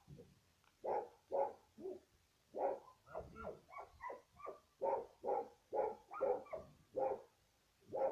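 A dog barking over and over, about two barks a second, with a stretch of quicker, higher-pitched yips about three to four and a half seconds in.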